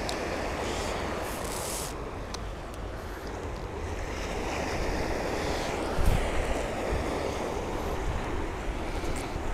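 Sea waves breaking and washing around the wader, with wind buffeting the microphone in a steady low rumble. A brief thump about six seconds in.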